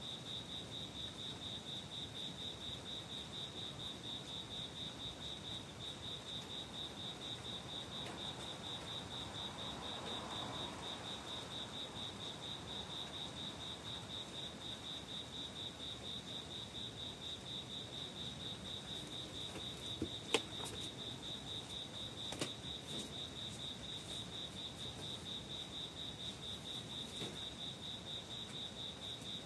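Crickets chirping: a steady, high-pitched, evenly pulsing trill. A couple of sharp taps come about two-thirds of the way through.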